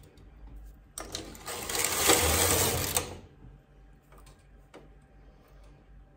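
Knitting-machine carriage pushed across the needle bed, knitting a row: a loud mechanical whir lasting about two seconds, starting about a second in. A few faint clicks follow.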